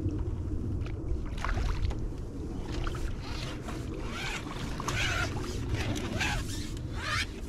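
Repeated water splashes as a hooked fish thrashes at the surface and is guided into a landing net, over a low steady rumble of wind on the microphone.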